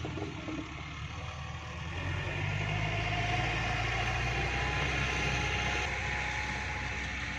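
Tractor engine running steadily, getting louder about two seconds in, with a faint rising whine over it.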